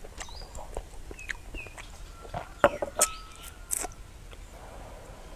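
Sharp clicks of a metal spoon at a meal, a few in all, the loudest about two and a half and three seconds in. Small birds chirp now and then in the background.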